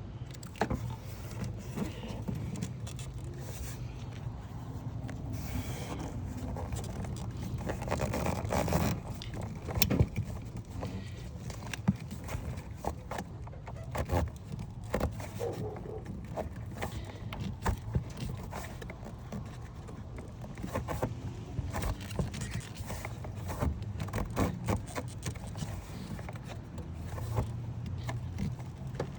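Hands working a plastic heater hose quick-connect coupling in an engine bay: scattered clicks and knocks, loudest about a third of the way in, over a steady low hum.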